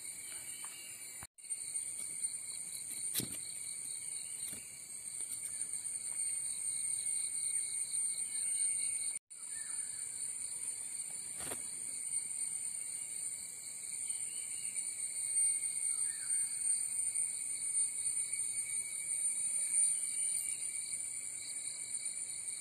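A chorus of insects in the undergrowth: a steady high-pitched shrill drone with a faster pulsing trill beneath it, broken by a few short chirps and soft knocks. The sound cuts out briefly twice.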